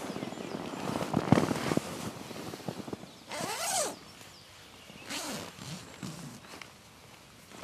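Hammock and sleeping-bag fabric rustling as someone shifts about inside a netted hammock, with a zipper pulled about three and a half seconds in.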